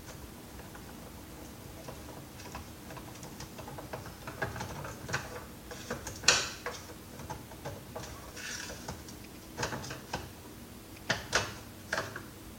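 Scattered clicks and knocks of plastic vacuum-cleaner parts and a screwdriver being handled during a teardown, with one sharper knock about six seconds in.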